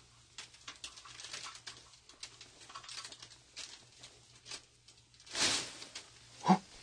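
Faint, irregular scratching and tapping, like something small moving in the dark, then a louder rustle about five and a half seconds in and a short voice-like sound near the end.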